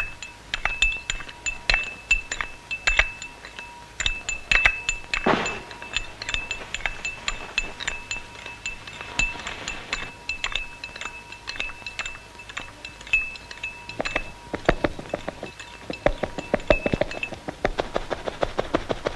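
A teaspoon stirring in a small porcelain espresso cup, clinking against the sides over and over with a bright ringing tone. The clinks come quicker and closer together from about fourteen seconds in. A single falling swoosh sounds about five seconds in.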